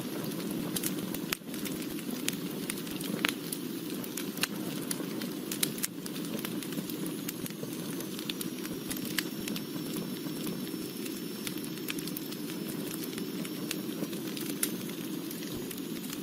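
Wood fire burning steadily: a low rushing of flames with frequent sharp crackles and pops of burning wood. A faint high whistle sounds through the middle part.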